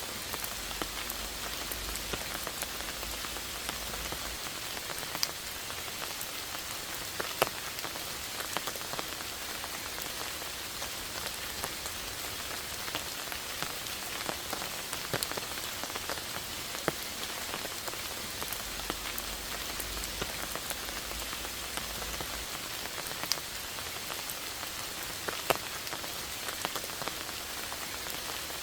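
Steady rain falling, with many single louder drops ticking close by through the even hiss. A low rumble rises underneath for a few seconds twice, near the start and again about two-thirds of the way through.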